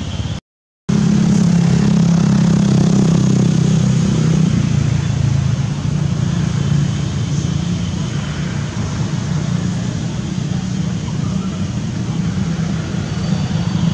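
A motor vehicle's engine runs steadily with a low hum, strongest in the first few seconds and then easing off but still there. The sound cuts out briefly to silence about half a second in.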